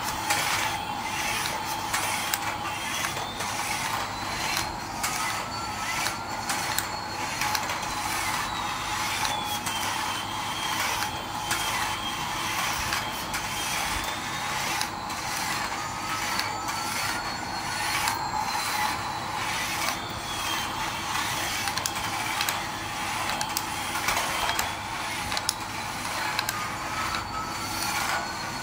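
Toy Airbus A380 airliner driving itself across a tiled floor: its small motor and gears make a steady, rapid clicking rattle. Over it runs a steady tone and a faint whine that slowly rises and falls about every ten seconds.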